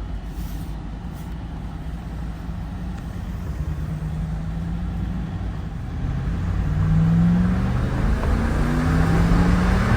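Dodge Ram 1500's 5.7 L Hemi V8 pulling hard under acceleration, its engine note getting louder and climbing in pitch twice in the second half. The engine still carries a cylinder 6 misfire code.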